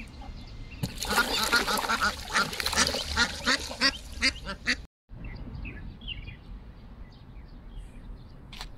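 Ducks quacking in a fast, busy run of calls for about four seconds. The sound then cuts off abruptly to a quieter stretch with a few faint bird chirps.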